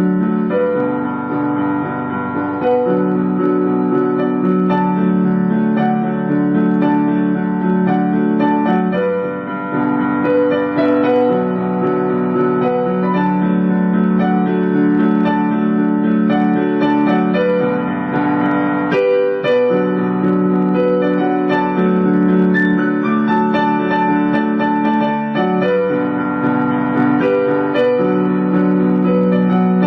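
Piano music: slow sustained notes and chords played steadily.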